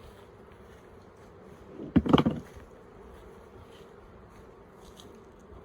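Honeybees buzzing steadily around an open hive, with a brief loud clunk about two seconds in.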